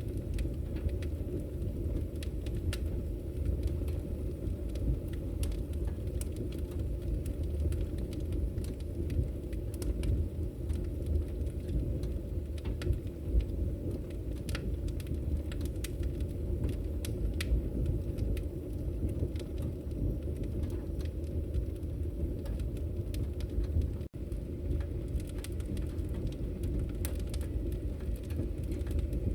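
Firewood burning: a steady low rumble of the fire with frequent sharp crackles and pops scattered throughout. The sound cuts out for an instant near the end.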